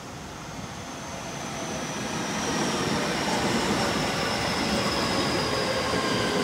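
JR West 223 series 2000 second-batch electric multiple unit approaching and running past, growing louder for the first two and a half seconds. Its VVVF inverter and traction motors whine as several tones drift gently downward in pitch as the train slows, over steady wheel-on-rail rumble.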